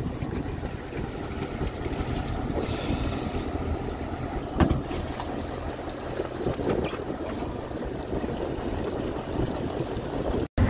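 Steady low rumble aboard a fishing boat with wind on the microphone, and a single sharp knock about four and a half seconds in.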